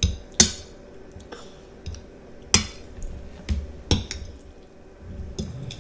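Metal fork clinking and scraping against a ceramic plate while spaghetti in meat sauce is twirled and picked up. There are several sharp separate clinks, the loudest just under half a second in and about halfway through.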